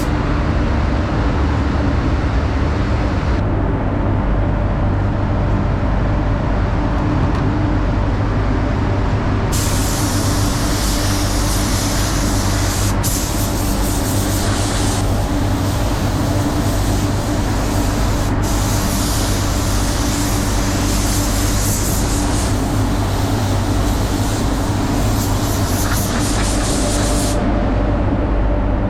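Spray booth fans running with a steady rumble and hum, while a paint spray gun hisses in long passes from about a third of the way in until near the end, broken twice by brief trigger releases.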